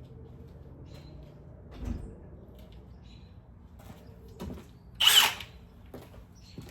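A power tool runs in one short burst of about half a second, the loudest sound here, after a low thump and a few small knocks of handling; a steady low hum sits underneath.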